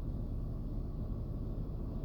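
Steady low background rumble with a faint steady hum and no distinct events.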